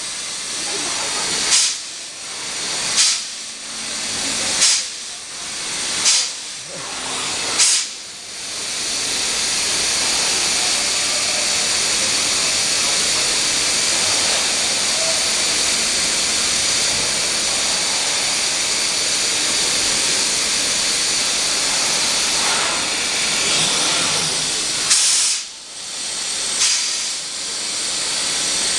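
PADE Sincro 5-axis CNC router machining plastic on a vacuum table: a loud, steady hiss. Sharp spikes come about every one and a half seconds in the first eight seconds, and twice more near the end.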